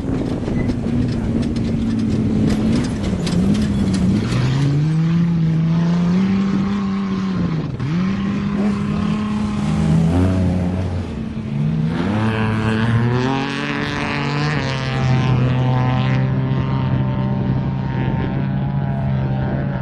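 Off-road race vehicle engine revving, its pitch rising and falling again and again as the throttle is worked, then holding a steady pitch for the last several seconds.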